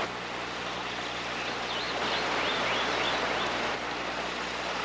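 Stream water flowing over rocks, a steady even hiss, with a bird chirping a quick run of short notes through the first few seconds.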